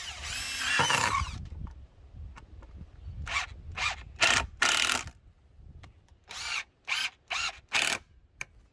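Makita 18V cordless driver driving screws into pine timber. A long run of about a second and a half comes first, then a string of short trigger pulses in two groups of four as the screws are seated.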